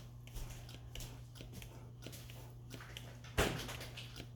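Faint small clicks and handling noises of small craft pieces being added one at a time to slime glue, with one louder knock about three and a half seconds in.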